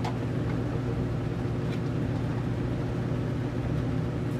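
A steady low machine hum throughout, with a faint click about two seconds in.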